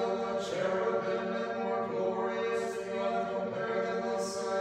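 Voices singing Orthodox liturgical chant a cappella, in long held notes.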